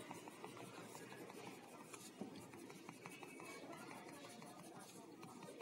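Faint scratching of a crayon shading on paper, a run of short back-and-forth strokes.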